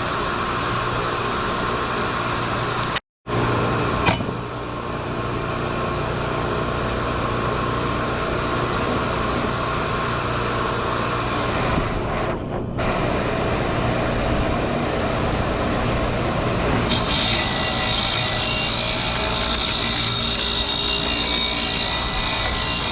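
Bench grinder running, its wire brush wheel scrubbing rust and grime off a steel mower blade. The sound cuts out for a moment about three seconds in. A brighter, harsher scraping comes in from about seventeen seconds.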